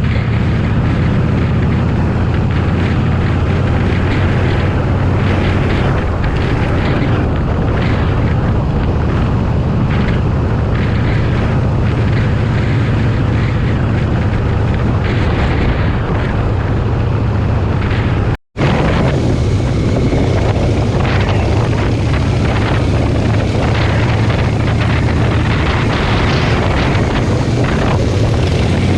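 Motorcycle running steadily on the move, with wind noise on the microphone and a brief cut about two-thirds of the way through.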